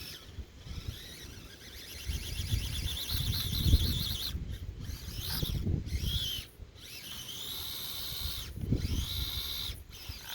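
The small electric motor and gearbox of an Axial SCX24 Deadbolt 1/24-scale RC crawler whining in repeated throttle bursts, the pitch rising and falling and cutting out briefly several times, over low rumbling as it drives through mud.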